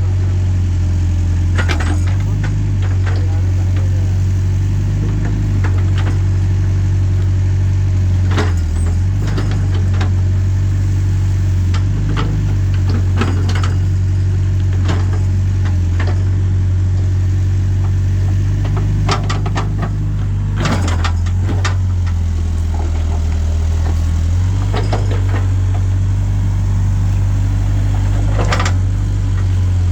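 Backhoe loader's diesel engine running steadily with a low drone, with scattered short knocks and clicks over it.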